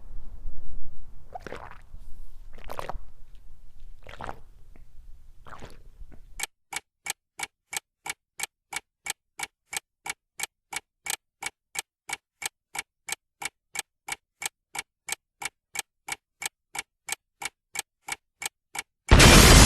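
Clock-ticking sound effect, crisp evenly spaced ticks at about two and a half a second, starting about six seconds in after a few soft, short sounds. Just before the end a sudden loud burst of noise cuts in.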